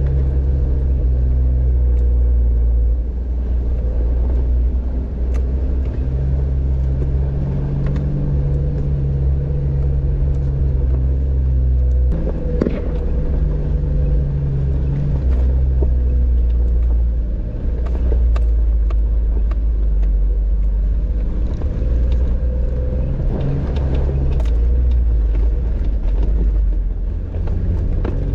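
A Jeep driving with its engine running steadily, a low drone and rumble, with a few scattered knocks and rattles.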